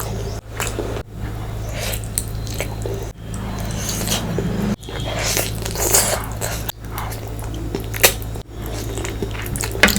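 Close-miked chewing and biting of fish curry and rice: wet, squishy mouth sounds with sharp clicks, over a steady low hum. The sound drops out suddenly for an instant about six times.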